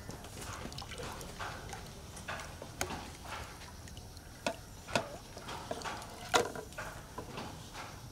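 A wet skein of indigo-dyed silk yarn being dipped and worked in an indigo dye vat, with soft handling and liquid sounds. A few sharp knocks stand out, the loudest about six seconds in.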